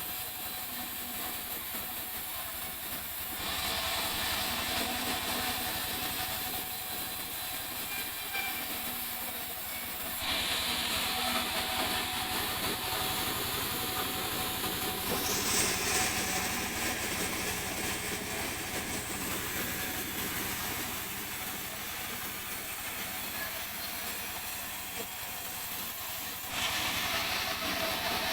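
Sawmill saw running steadily through a mahogany log, a continuous mechanical hiss that steps louder and softer several times as the cut goes on.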